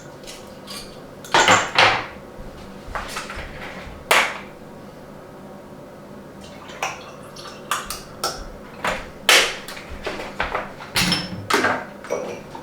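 Dishes and utensils clinking and knocking while coffee is being made: a dozen or so separate sharp knocks and clinks at irregular intervals.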